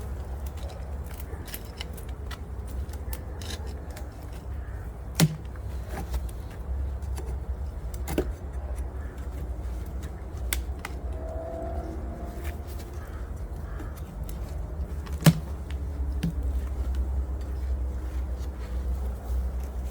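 Wooden hive boxes and frames being worked by hand, giving scattered sharp knocks and clicks, the two loudest about five and fifteen seconds in, over a steady low rumble.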